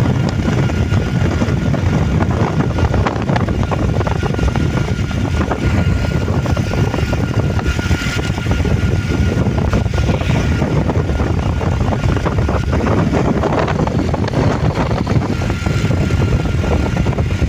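Steady low rumble of a running vehicle's motor, with a faint constant whine on top.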